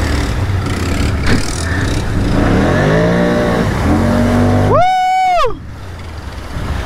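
ATV engine running under throttle, its pitch rising as it revs up around the middle. Near the end comes a loud shouted "Woo!", and the engine sound drops off after it.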